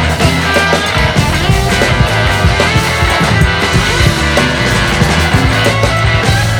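Music: a dense rock-style track with a steady beat, held bass notes and guitar-like parts.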